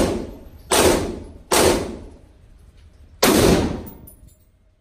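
Four shots from a .223 AR-15 rifle, fired one at a time inside an indoor range, each ringing off the walls. The first is at the start, the next two follow at under a second apart, and the fourth comes after a pause of nearly two seconds.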